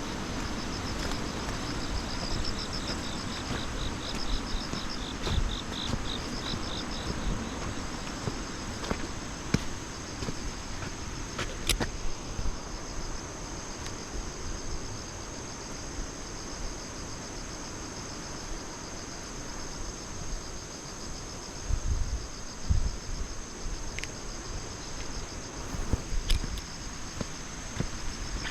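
Insects trilling steadily, with rows of rapid pulsed chirps in the first several seconds, over low rumbling wind noise on the microphone.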